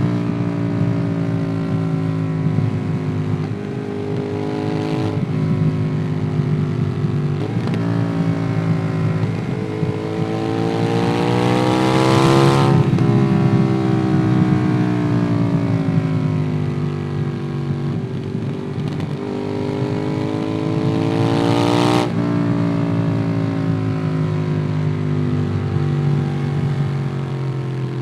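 Ducati Monster 821's L-twin engine through a QD Twin Gunshot aftermarket exhaust, heard from on board while riding. The revs climb to a peak about halfway through and drop, then climb again and fall off sharply about three-quarters of the way in, as the throttle is opened and closed.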